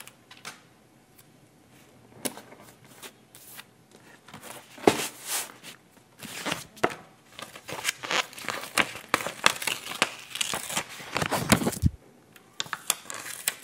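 Paper sticker sheets being handled and peeled from their backing: crinkling and rustling paper with light taps and clicks. Sparse at first, busiest in the second half, dropping off near the end.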